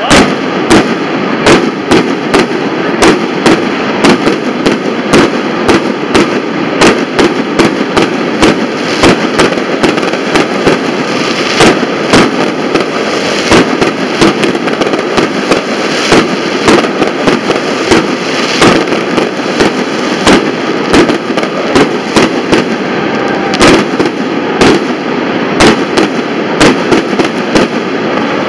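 Fireworks display: a steady string of sharp bangs from launches and bursts, about two a second, over a continuous din.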